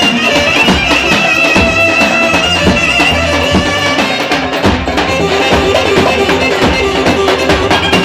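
Live Roman havası dance music: a davul bass drum beating steadily under a wind instrument playing a long, held high melody.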